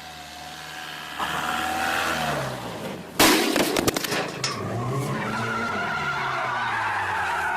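Car collision on a dash-cam recording: an engine hum rising in pitch, then a sudden loud bang with clattering about three seconds in, followed by a steady high squeal.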